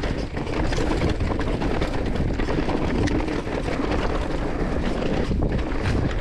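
Mountain bike rattling and knocking over a rough, rocky trail at speed, with wind buffeting the microphone.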